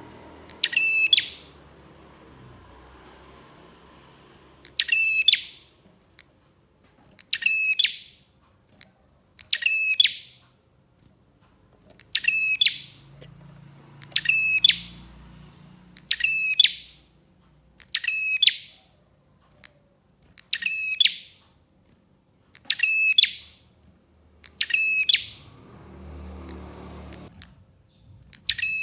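Prinia (prenjak) calling: loud, sharp, clicking rattle bursts of about half a second, repeated roughly every two seconds, about a dozen times.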